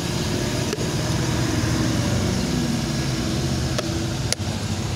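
Steady low rumble of a vehicle engine idling close by, over general street noise, with a couple of sharp clicks near the end.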